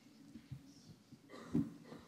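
Low, murmured voices in a lecture hall, with one brief louder sound about one and a half seconds in.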